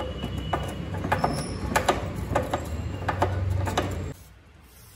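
Pliers working inside a steel moped frame: a string of sharp metallic clicks and scrapes over a low steady hum, both dropping away about four seconds in.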